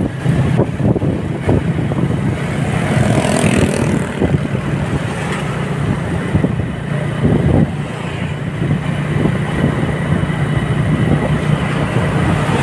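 Steady engine hum and road noise of a vehicle travelling along a street, with other motorcycles and cars passing.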